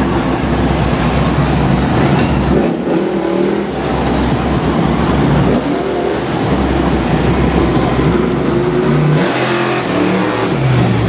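Vehicle engines running and revving as several lit vehicles drive around the arena floor, with a loud low rumble throughout.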